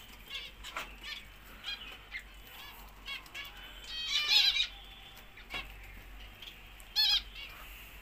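Zebra finches calling: short nasal calls scattered throughout, with a louder run of rapid repeated calls about four seconds in and another loud call at about seven seconds.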